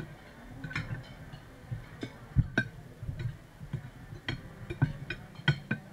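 Scattered clinks and taps of spoons and forks on plates and dishes at a meal, with a dull knock on the table about two and a half seconds in.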